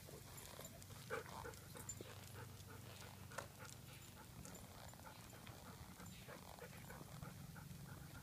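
Faint clicking of a dog's claws on concrete as it walks, in short irregular taps.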